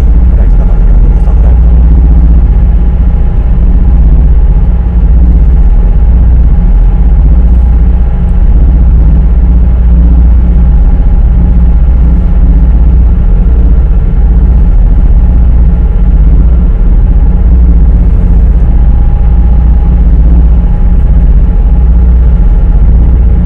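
High-speed ferry's engines running at cruising speed, heard inside the passenger cabin: a loud, steady low drone with a faint steady hum above it.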